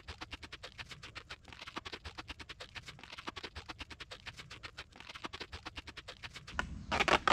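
Duct tape being pulled off the roll and wrapped around a tree trunk: a fast, even run of short crackling rips, getting louder near the end.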